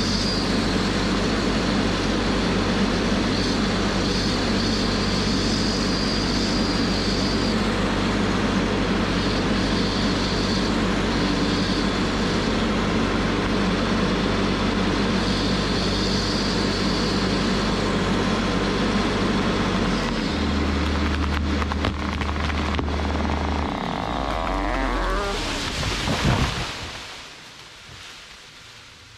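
Tracked feller buncher's diesel engine running steadily under load as its saw head pushes a hinge-cut red oak over. About 24 seconds in, branches crackle and the tree crashes to the ground, the loudest moment. Then the sound falls away sharply.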